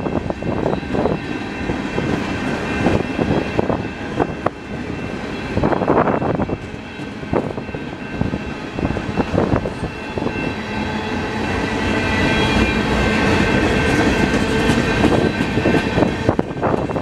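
Freight cars (box cars and tank cars) rolling past on steel wheels, with irregular clicks and clanks over the rail joints. A steady high ringing runs under the clatter and grows louder in the second half.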